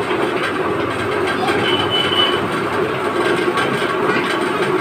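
Motor-driven mustard oil expeller running steadily, a continuous mechanical clatter. A brief high squeak comes about two seconds in.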